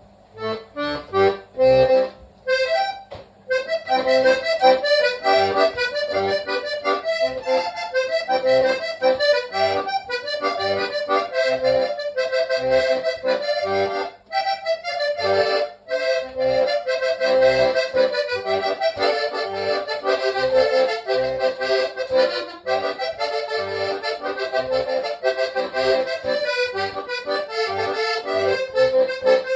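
Hohner Trichord three-row diatonic button accordion played solo, the standard version with its bright Hohner reed sound. A few short chords open about half a second in, then a continuous melody with quick notes, broken by two brief pauses about halfway through.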